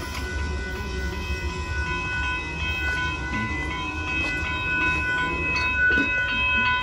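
Railroad grade-crossing warning bell ringing steadily while the crossing signals flash, over a low rumble.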